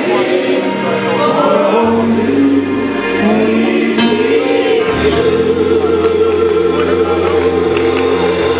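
Gospel praise team and choir singing into microphones with instrumental accompaniment, held low notes shifting under the voices.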